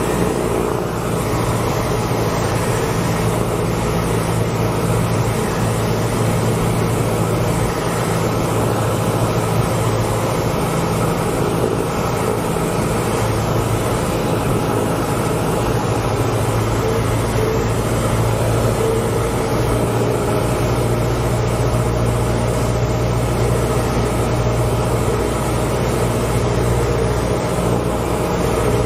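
A 1980 Cessna 172N's four-cylinder Lycoming O-320 engine and propeller running steadily in flight, heard as a constant drone from inside the cockpit.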